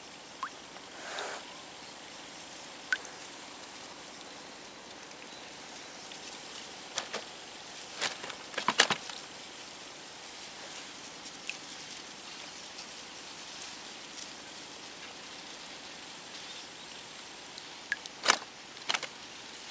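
Quiet outdoor waterside ambience: a steady faint hiss with a thin, steady high-pitched whine, broken by scattered light clicks and taps, a cluster of them about eight to nine seconds in and another near the end.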